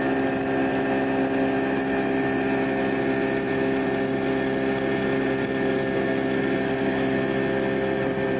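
Motorboat engine running at a steady drone while the boat is under way at speed.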